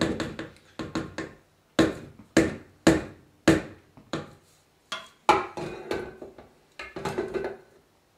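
A spatula knocking and scraping against a stainless steel mixing bowl as powdered sugar is stirred into frosting by hand: irregular sharp taps, each with a short ring, roughly every half second.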